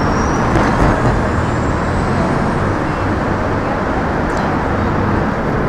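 City street traffic: a steady, loud wash of car engines and tyre noise.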